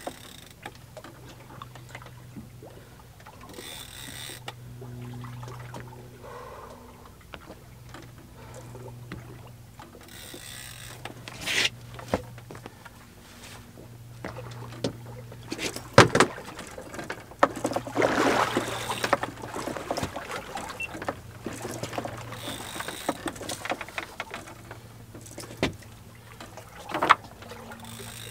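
Boat engine idling with a steady low hum. A few sharp knocks and a couple of seconds of rushing noise break in about two-thirds through.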